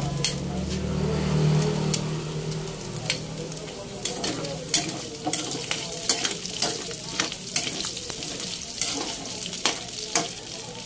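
Diced pork frying in hot oil in a pan, sizzling steadily as it browns, with frequent sharp pops and clicks from about the middle on as a spatula moves the pieces. A low hum sits under it for the first few seconds.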